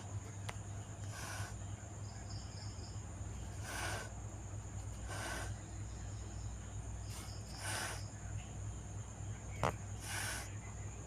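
A cat hissing: five short hisses spaced a few seconds apart, over a steady low hum and a thin high whine.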